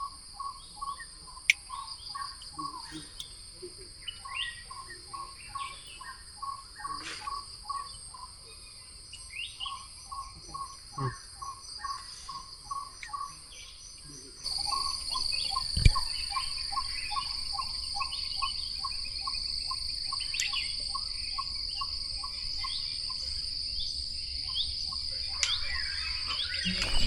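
Tropical forest ambience: a steady, high-pitched insect drone with a fast run of short repeated call notes and scattered bird chirps over it. The insect drone grows louder about halfway through.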